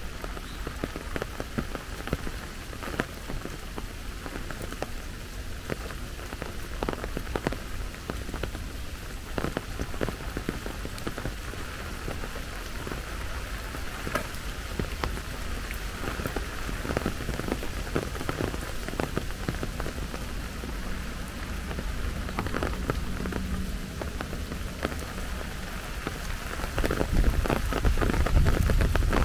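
Steady rain falling, with many separate drops striking close by. A low rumble grows louder near the end.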